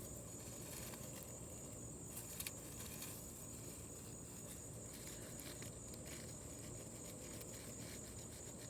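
Faint steady high-pitched insect chorus, with a few faint taps about two to three seconds in.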